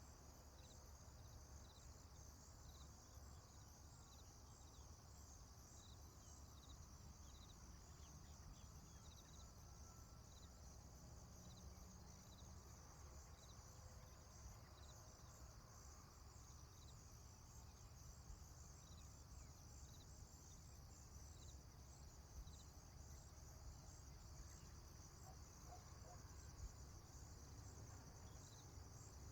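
Faint rural ambience of crickets chirping steadily, with another chirp repeating about once a second, over a low rumble.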